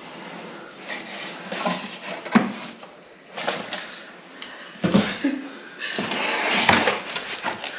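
A cardboard box being opened by hand: the lid and flaps scrape and knock, with two sharp knocks, then the plastic-wrapped packing inside rustles near the end.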